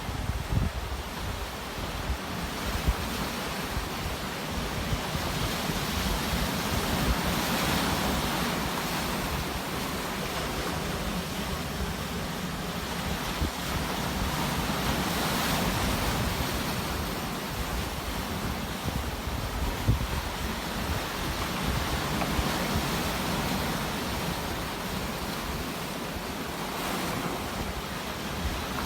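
Sea waves washing onto a shore, swelling and falling back roughly every eight seconds.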